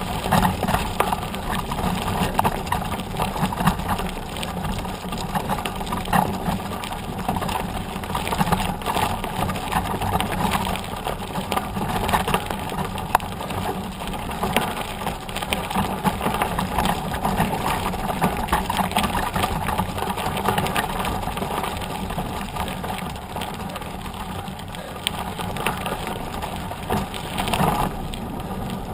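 Knobby mountain-bike tyre rolling fast over a gravel track: a steady crunching of loose stones under the tread mixed with the rattle of the bike, heard from right beside the front wheel.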